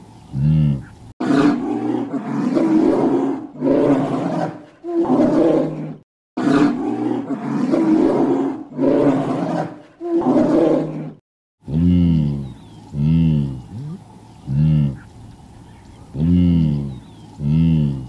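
A bear growling in a run of long, rough growls of about a second each, from about a second in until about two-thirds of the way through. Before and after them, blue wildebeest give short grunting calls, about one a second.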